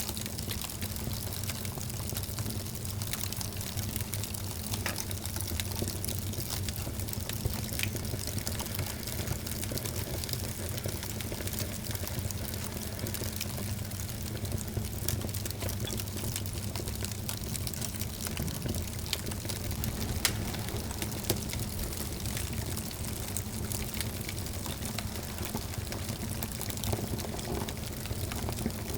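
Wood fire burning in a fireplace: a steady rushing hiss dotted with small crackles, and a few sharper pops, the loudest about twenty seconds in.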